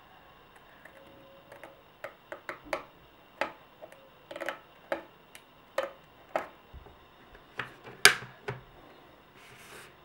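Scissors snipping through a sheet of paper: a run of short, sharp snips at about two a second, the loudest about eight seconds in, followed by a brief soft rustle of paper near the end.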